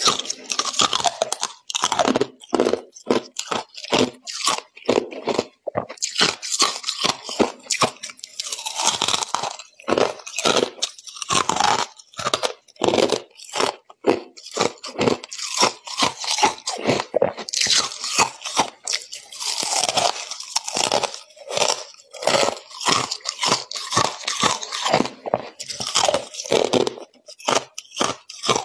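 Freezer frost and ice crunching: a dense run of crisp crunches, two or three a second, with short pauses between runs.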